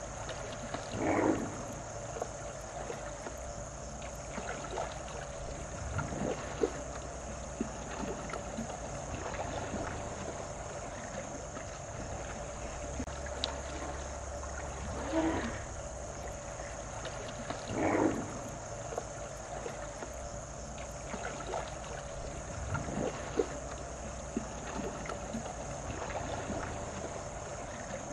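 Lion feeding on a hippo carcass, with a few short louder sounds about a second in and again at about fifteen and eighteen seconds. Behind it runs a steady high insect chorus.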